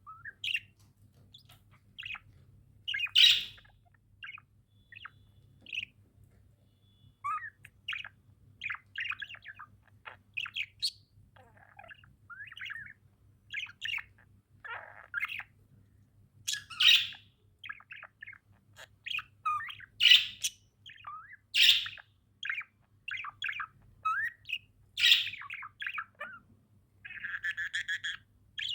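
Budgerigars chirping and chattering, short warbled calls with several louder squawks among them, over a faint steady hum.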